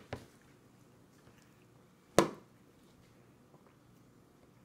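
Plastic baby bowl knocking against a high-chair tray: two light clicks at the start, then one sharp knock about two seconds in.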